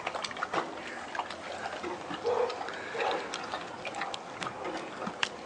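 A tiger cub eating from a bowl: irregular small clicks and smacks.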